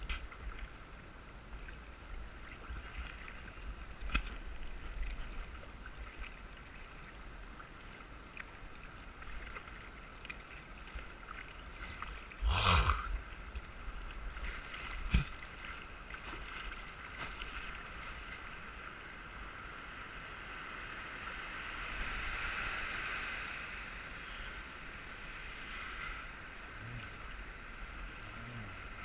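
Swift, muddy floodwater rushing past a kayak being paddled downstream, a steady hiss of moving water. A few sharp knocks, and one loud short burst of noise a little before halfway.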